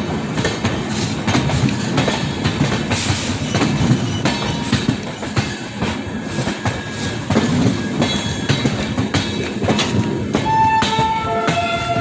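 Passenger train rolling slowly into a station, its wheels clicking irregularly over rail joints and points over a steady rumble. About ten seconds in, a steady horn-like tone sounds and steps down to a lower pitch.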